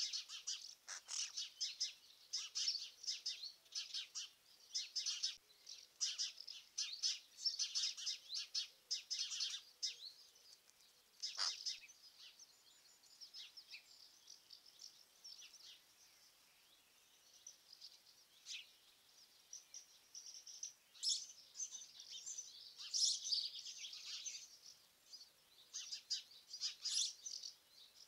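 Small songbirds chirping and singing in quick, high notes, busy at first, thinning out to scattered calls through the middle, then busy again in the last third.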